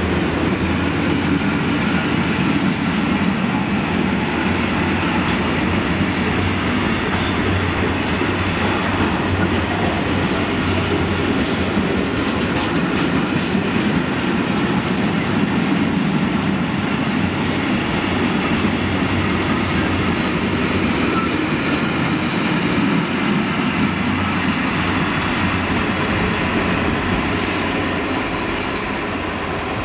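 Freight train of covered wagons rolling past close by, its wheels clattering over rail joints. The sound eases off near the end as the last wagons go by.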